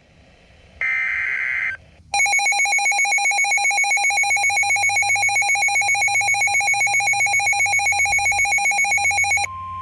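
Weather-alert signalling: about a second in, a short warbling burst of SAME digital data. From about two seconds, a weather radio's electronic alarm pulses rapidly, about seven beeps a second. Near the end a steady single-pitch warning tone, the weather radio alert tone, cuts in.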